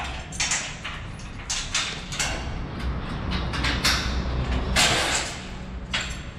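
Steel shipping-crate frame being handled and lifted apart, with irregular short clanks, scrapes and rustles.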